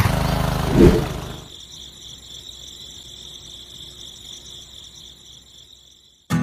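A small engine running steadily, with a brief loud burst about a second in, then dying away by a second and a half. Steady high chirring of crickets follows.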